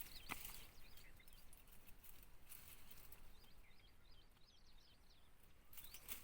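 Near silence with faint, scattered bird chirps, short high notes in loose groups, thickest around the middle.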